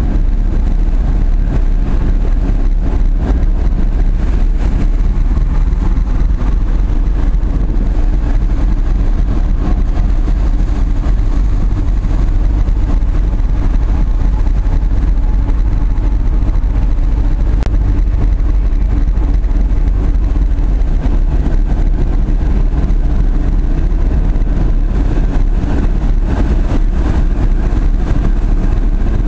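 Tugboat's diesel engines running steadily under load, a loud, low, even drone with no change in pitch.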